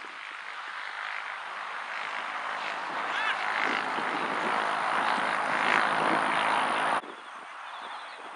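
A droning, engine-like noise that grows steadily louder over about seven seconds, then drops away abruptly.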